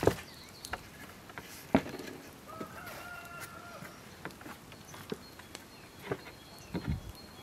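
A rooster crows once, a held call a little under a second long, about three seconds in. Around it are a few sharp knocks, the loudest near the start and about two seconds in, and soft handling noise.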